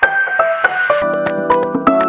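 Background music: a melody of short bright keyboard-like notes, joined about a second in by a fuller accompaniment and a light, regular beat.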